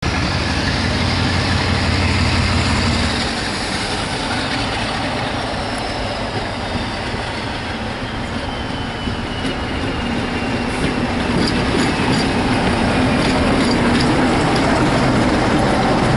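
Class 47 diesel locomotive with a Sulzer V12 engine, running under power as it approaches and passes with its coaches, growing louder near the end. A high whine slowly falls in pitch in the middle, and a low hum stops about three seconds in.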